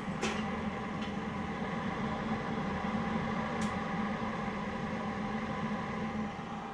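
Small electric fan motor running with a steady hum. It comes on with a click at the start, gives a short tick partway through, and winds down near the end.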